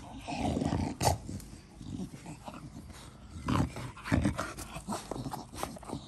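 Dog panting close to the microphone with a tennis ball in its mouth, with a few louder breathy huffs near the start and twice past the middle.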